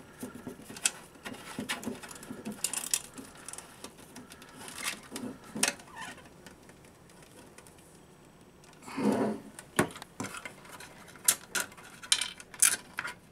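Hands turning a photocell into the wall pack housing and handling the wires, giving scattered small clicks and rattles, with one louder knock about nine seconds in.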